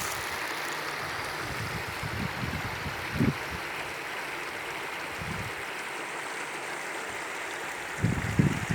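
Small stream babbling steadily over stones, with a few short low bumps in the background, the loudest about three seconds in and several near the end.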